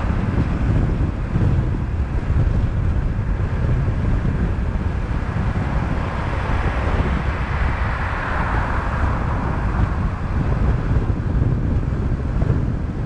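Car driving along a city street, heard through a car-mounted action camera's microphone: steady low wind rumble on the microphone over tyre and road noise. A broader hiss swells about seven to nine seconds in.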